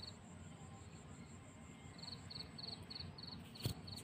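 Cricket chirping faintly, a short high chirp repeating evenly about four times a second. The chirping stops for a couple of seconds after the start, then resumes. A single sharp click sounds near the end.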